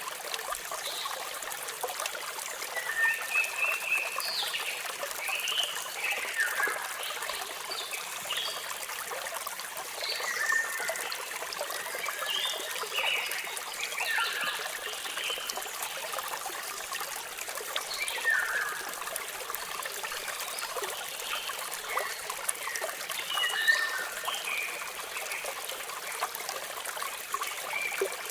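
Waterfall water running in a steady rush, with many small birds chirping and whistling in short, overlapping calls throughout.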